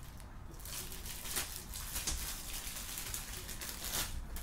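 Plastic wrapping crinkling as it is handled, with a few short sharp crackles, the last near the end.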